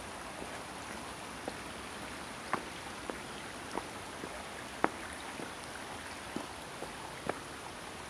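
Small rocky stream trickling: a steady wash of running water with scattered, irregular sharp drips and plinks.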